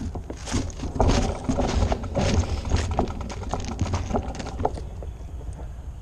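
Mountain bike rolling over loose railway ballast: the tyres crunch on the rocks and the bike rattles in a quick, uneven run of knocks, loudest a second or two in, dying away about five seconds in.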